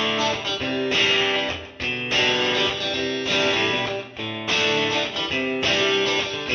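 Background music: guitar chords played in a steady rhythm, changing about once a second.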